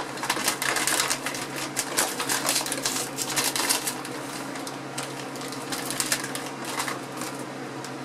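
A bag of pita chips crinkling and crackling as it is pulled open by hand. The crackles come thickest in the first half and thin to lighter handling rustles later.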